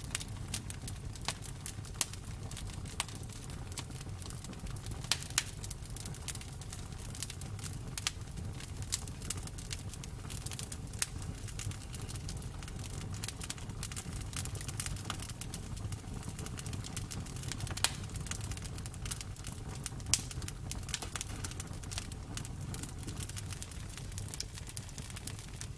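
Campfire burning: wood crackling and popping irregularly, with a few louder snaps, over a steady low rumble of the flames.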